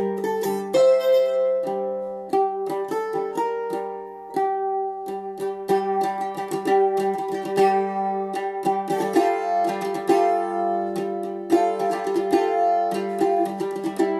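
Bandolim (Brazilian mandolin) played solo: a melody of quickly picked notes over a held low note.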